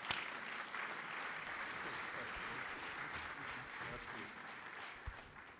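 Audience applauding in a conference hall, dying away near the end.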